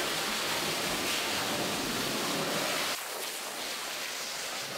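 Water jetting from a hose's spray nozzle onto a concrete enclosure floor: a steady hiss, slightly quieter from about three seconds in.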